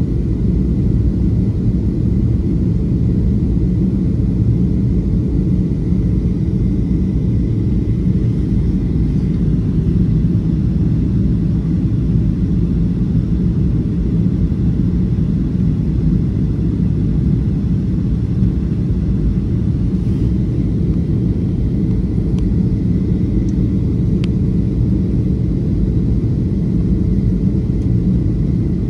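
Steady low rumble inside the cabin of a Boeing 737-500 on approach, the engines and the airflow over the fuselage heard from a window seat beside the wing, with a faint steady whine above it.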